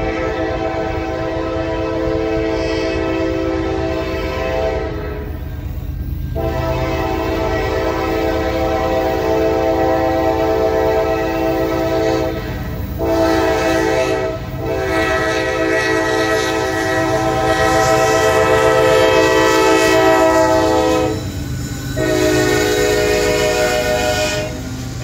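Diesel freight locomotive sounding its multi-note air horn in loud blasts: long, long, short, long, then another long, the grade-crossing signal. Beneath it the locomotive's engine and the double-stack container cars rumble past on the rails.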